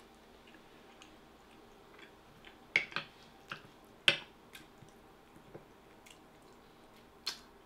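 Eating sounds: chewing with soft wet mouth clicks, and a few sharp clicks and taps as a spoon works in a glass dish of curry and rice, the loudest near the middle.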